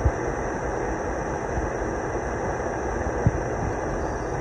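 Handheld Scorch Torch butane torch running with a steady hissing jet flame, played on a quartz banger. Two brief low thumps come through it, one at the start and one about three seconds in.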